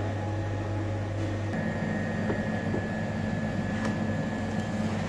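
Steady mechanical hum of kitchen equipment such as ventilation and appliances. About a second and a half in it gives way to a rougher hum with a faint high whine.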